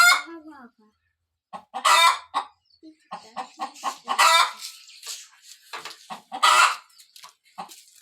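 Hen cackling: runs of short clucks, each run ending in a loud drawn-out squawk, three times about two seconds apart. It is the call of a hen ready to lay an egg.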